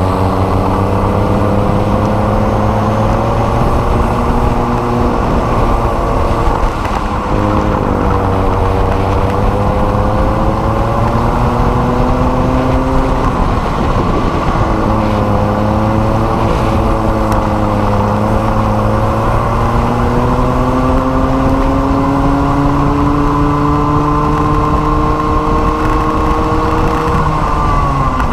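Small two-stroke racing kart engine running at race speed, its pitch climbing through the straights and dropping back three times as the driver lifts for corners, about a quarter, half and nearly the full way through.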